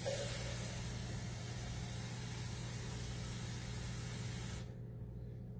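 Water poured from a measuring cup into a cooking pot: a steady, even rush that starts suddenly and cuts off about a second before the end.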